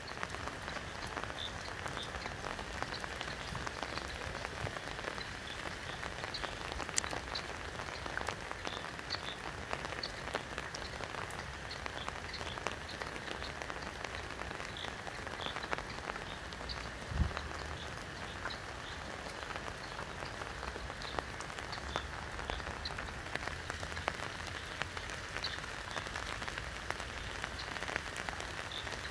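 Steady rain falling on a river surface and the bank, an even hiss dotted with many small drop ticks. One dull bump a little past the middle.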